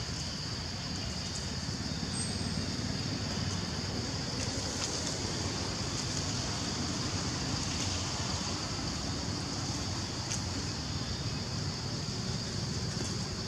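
Steady forest ambience: a constant high-pitched insect drone over a low rumble, with a few faint ticks.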